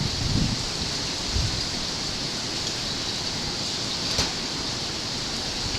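Steady outdoor hiss with wind buffeting the microphone in the first second, and a single faint click about four seconds in.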